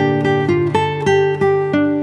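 Background music: an acoustic guitar picking a steady run of single notes over a held bass note.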